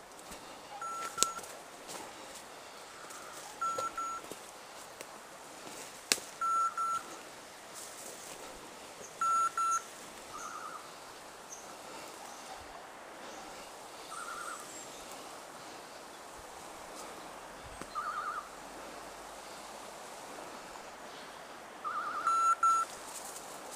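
Electronic beeper collar on a woodcock-hunting dog, giving short pitched beeps, often in pairs, and short warbling trills every few seconds. Two sharp snaps come about a second in and about six seconds in.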